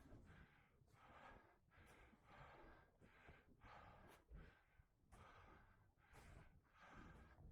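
A person breathing hard and fast, faint, in quick regular breaths about one and a half a second, as when out of breath on a steep climb.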